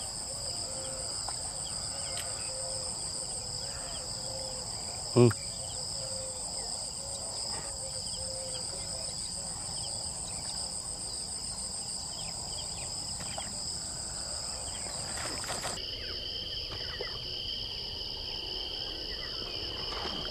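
Insects chirring steadily in high, continuous tones. About five seconds in there is one brief, louder sound, and near sixteen seconds one high tone stops as a lower steady tone takes over.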